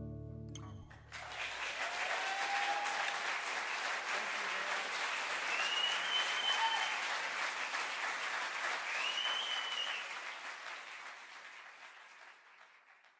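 A piece of music ends in the first second, then an audience claps, with a few high gliding whistles, and the applause fades out near the end.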